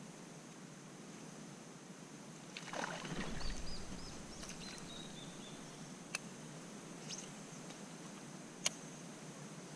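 Water splashing at the surface beside the kayak about three seconds in, followed by a few faint high chirps and two sharp clicks a couple of seconds apart.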